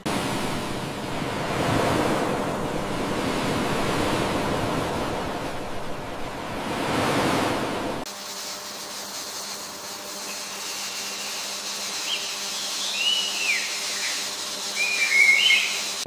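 Sea surf washing in two slow swells. About halfway through, it gives way to a thin, even forest hiss with a few short whistled bird chirps near the end.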